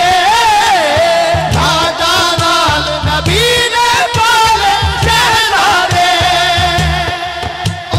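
Naat music: a wavering, ornamented sung melody over a steady low drum beat.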